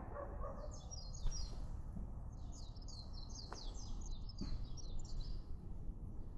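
Small birds chirping in quick runs of short, high, down-slurred notes, twice, over a steady low rumble, with a sharp click about a second in.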